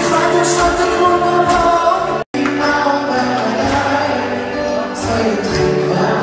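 Live acoustic pop performance heard from the audience: a male singer with two acoustic guitars. The sound cuts out completely for an instant about two seconds in.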